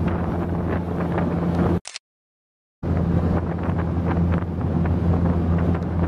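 A boat's outboard motor running at a steady cruising hum, with wind buffeting the microphone as the boat moves. The sound cuts out completely for about a second near the two-second mark, then the same hum resumes.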